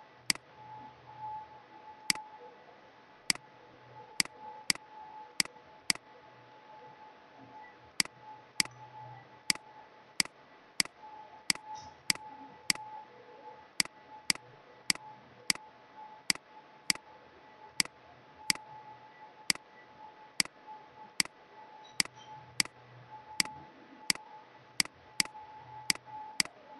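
Computer mouse clicking: many sharp single clicks at an uneven pace, often two or three a second, over a faint steady tone.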